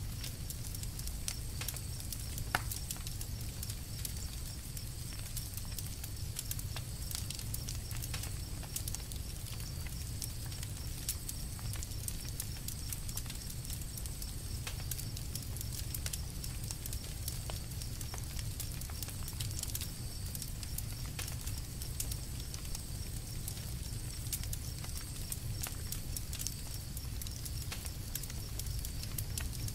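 Campfire crackling: a steady run of small snaps and pops over a low rumble, with one sharper pop about two and a half seconds in.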